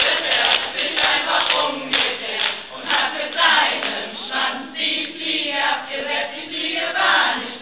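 A large group of voices singing a song together.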